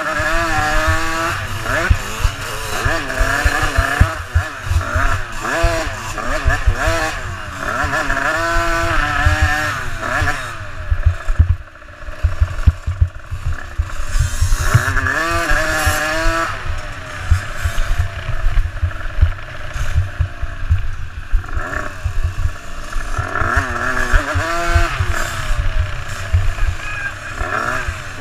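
Dirt bike engine close to the microphone, revving up and down over and over as it rides a rough trail, with heavy low thumping and buffeting on the microphone. About twelve seconds in, the engine briefly drops away before picking up again.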